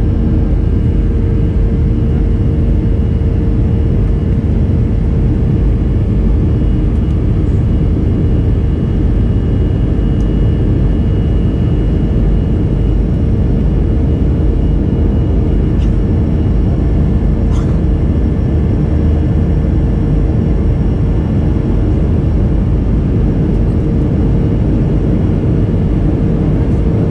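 Boeing 737-300 cabin noise at the window beside its CFM56-3 turbofan during the climb after takeoff: a steady rumble with a constant droning tone over it.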